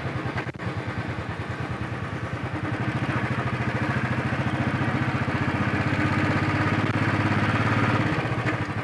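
Royal Enfield Bullet's single-cylinder engine running under way, with a steady stream of exhaust beats. It picks up a little about three seconds in and eases off slightly near the end.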